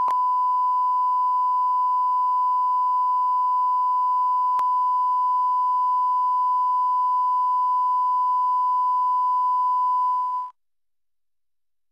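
Broadcast 1 kHz line-up test tone accompanying television colour bars: one steady beep that cuts off suddenly about ten and a half seconds in.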